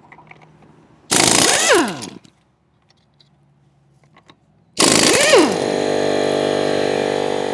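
Pneumatic impact wrench working a car's lug nuts, fed by a battery-powered one-gallon compressor: a burst of about a second, then a pause, then a second run that drops in pitch as it bites and settles into a steady sound that fades toward the end.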